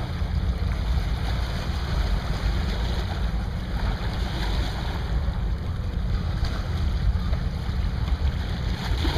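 Wind buffeting the camera's microphone: a steady, unbroken rumble.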